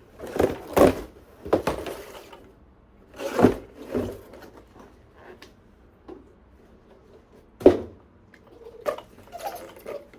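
Handling noises from unpacking: a series of separate short rustles and knocks as packaging and the RC truck are moved about, with a sharp knock about three quarters of the way through.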